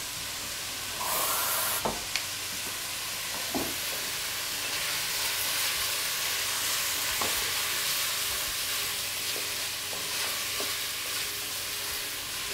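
Pieces of meat frying with paprika in a pot for goulash, a steady sizzle, with a wooden spoon stirring and now and then knocking against the pot. There is a brief louder sizzle about a second in.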